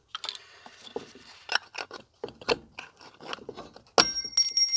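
Small metal clicks and scrapes as a metal tool works inside a zero-turn mower's front caster wheel hub, among the remains of a failed, broken-up wheel bearing. About four seconds in comes a sharp metallic clink that rings on with a high, steady tone.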